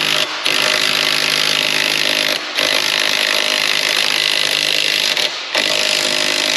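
Impact wrench hammering on a motorcycle's front axle nut, extremely loud, run in long bursts with three brief let-offs of the trigger. The nut is seized tight and barely turns.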